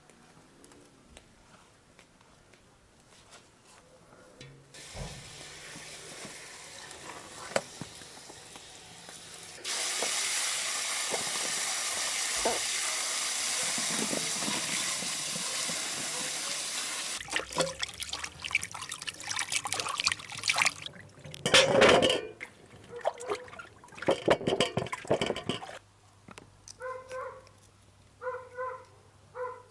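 Garden hose with a spray nozzle running water into a plastic basin of plums: a steady hiss, quieter at first and then loud for about seven seconds. After it stops, irregular splashing and knocking as the plums are rinsed in the water.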